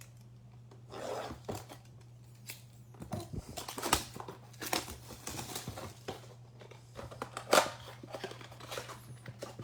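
Plastic wrapping on a box of Hoops basketball cards being torn open and crinkled while the cardboard box is opened and the packs pulled out, with sharp clicks and knocks, the loudest about four seconds in and near eight seconds. A steady low electrical hum underneath.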